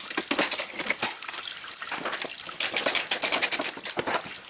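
Socket ratchet on an extension clicking rapidly as a short 10 mm bolt is backed out.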